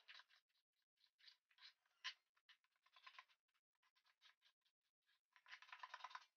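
Sharp wood chisel paring a chamfer along the edge of a wooden bench hook by hand. Faint, short slicing scrapes come as separate strokes, then a quicker run of them near the end.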